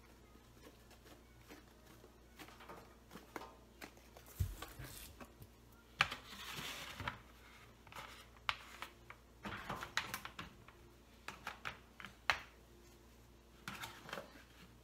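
Faint cleaning sounds: a trigger spray bottle spritzing vinegar onto a stovetop in several short hissing bursts, mixed with light taps and handling noises.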